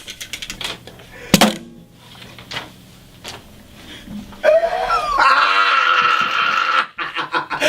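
A loud, high-pitched cry begins about four and a half seconds in, glides, then holds for about two seconds before cutting off. A few light clicks come before it.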